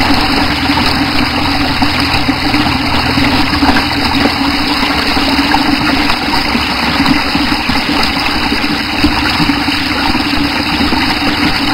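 Water running steadily through a small-scale dam spillway model, pouring over the spillway and through a V-notch weir, with a steady low hum underneath.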